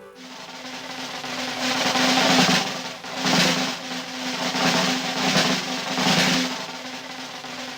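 Cartoon soundtrack percussion: a snare drum roll over a held low note, swelling and fading about once a second.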